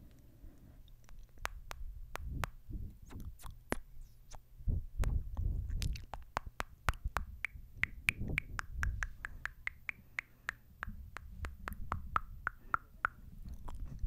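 Close-miked kissing into a microphone: many quick wet lip smacks and clicks over low muffled puffs against the mic. From about halfway in comes a run of short, high, squeaky smooches, several a second.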